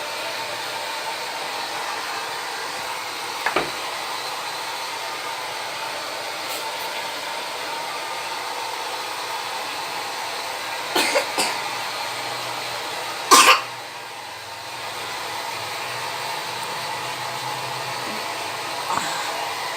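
Hand-held hair dryer blowing steadily, drying a child's hair, dipping briefly a little past the middle. A few brief sharp noises cut through it, the loudest about two-thirds of the way in.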